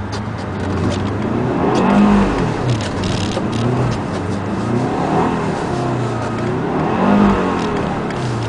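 2007 Subaru Forester XT's turbocharged 2.5-litre flat-four engine revving up and easing off in three swells while the car turns donuts on a slick, snow-covered surface.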